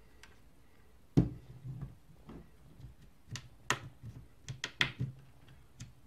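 Plastic snap-fit clips of a 2017 Nvidia Shield Pro's bottom cover popping loose as fingernails pry along the seam: one sharp pop about a second in, then a string of lighter clicks in the second half as the cover comes free.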